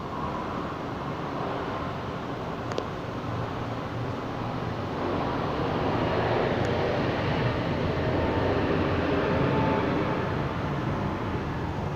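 Twin General Electric GE90 turbofans of a Boeing 777-200ER at takeoff thrust during the takeoff roll: a steady jet roar that builds, is loudest about two-thirds of the way through, and eases a little near the end.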